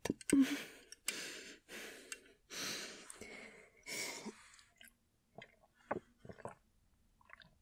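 A woman breathing heavily, with four or five deep, sighing breaths over the first few seconds. After them come a few faint mouth clicks and swallows as she sips from a jar.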